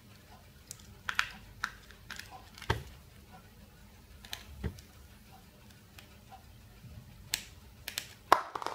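Small screwdriver backing tiny screws out of a plastic tube housing: scattered light clicks and scrapes, with a louder cluster of clicks near the end.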